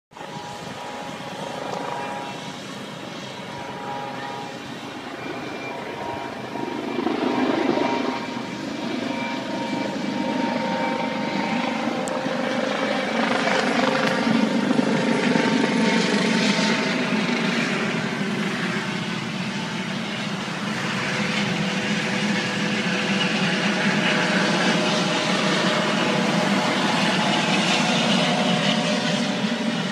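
Helicopter flying overhead, a steady rotor and engine noise with a high whine, growing louder as it comes nearer.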